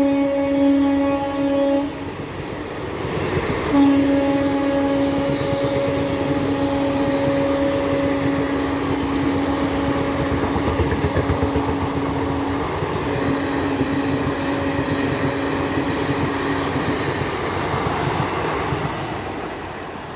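Indian Railways locomotive horn blowing a single steady note. One blast ends about 2 seconds in, and a long blast starts about 4 seconds in, breaks briefly and ends near 17 seconds. Under it is the continuous rumble of a running train, which fades near the end.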